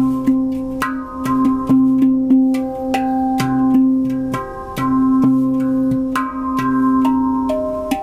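Handpan played by hand in an improvised piece: ringing struck notes, several a second, over a low note that keeps sounding between strikes.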